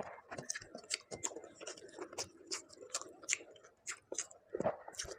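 Close-miked eating: chewing with a quick, irregular run of wet mouth clicks and smacks.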